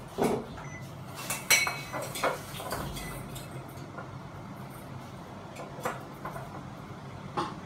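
Scattered clinks, taps and knocks of metal and glass fittings as hands work on the light kit under a Fanimation Benito ceiling fan. A few of them ring briefly, the loudest about one and a half seconds in, over a low steady hum.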